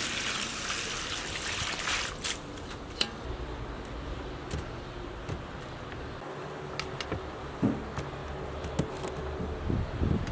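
Water poured out of a metal bowl and splashing onto the ground, a steady hiss that stops about two seconds in. After it come scattered light clicks and soft knocks as vegetables are handled in a wicker basket.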